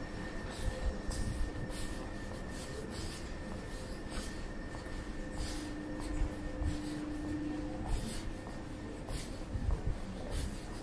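Footsteps on a hard terminal floor at a walking pace, about two a second, over a steady airport-hall hum with faint constant tones.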